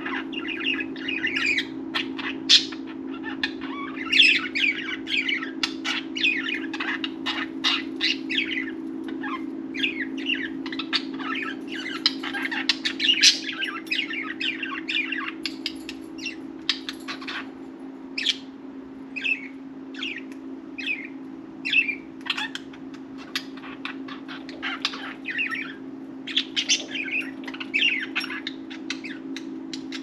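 Budgerigars chirping and chattering, a dense run of short, rapid chirps and warbles: the contented chirruping of pet budgies. A steady low hum runs underneath.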